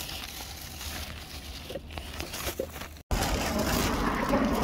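Outdoor background noise with a few faint handling sounds among trash bags. About three seconds in the sound cuts out for an instant and returns louder, as rustling and wind on a moving phone microphone.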